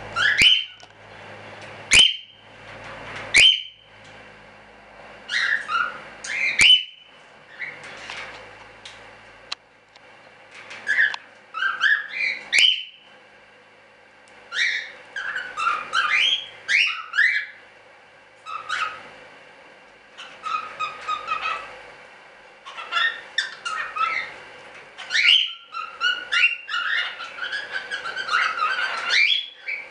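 Cockatiels calling: repeated short whistled chirps, many sweeping upward in pitch. A few calls are spaced out at first, then they come in busier clusters, thickest near the end.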